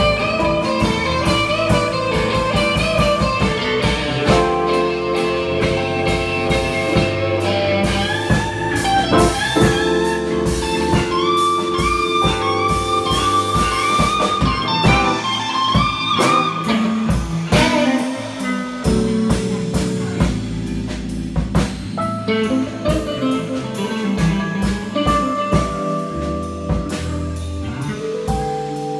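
Live electric blues: a Stratocaster-style electric guitar through a Marshall amp plays lead lines, with held notes and bends that rise in pitch, over bass and drums.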